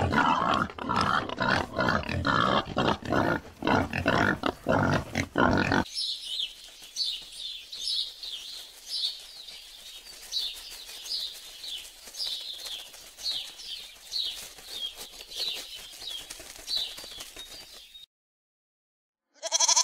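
An animal grunting in quick, loud succession for about six seconds. The grunts give way to a string of short, high, falling chirps, about two a second. A brief pitched call sounds right at the end after a short gap.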